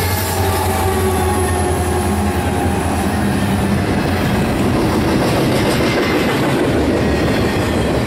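Freight train of double-stack container cars rolling past at close range, with steel wheels rumbling and rattling on the rails. The engine drone of the diesel locomotives that have just gone by fades away over the first few seconds.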